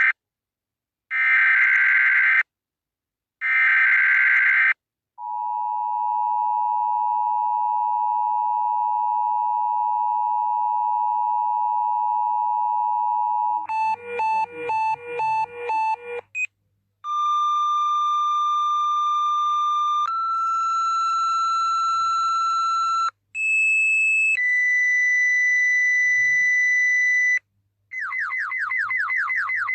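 Synthesized emergency-alert alarm tones: three short warbling bursts, then a long steady beep. About halfway through a second alarm starts with a jumble of tones, moves through a series of held electronic tones that step between pitches, and ends in rapid, repeating falling sweeps over a low hum.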